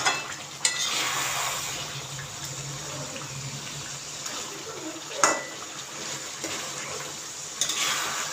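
A spatula knocking and scraping against a kadhai of chicken curry while the masala sizzles steadily underneath. There are a few sharp clinks, the loudest about five seconds in.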